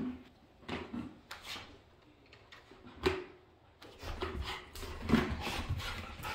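A Labrador playing with a plastic bucket on a wooden floor: scattered knocks and scuffs, busier over the last two seconds.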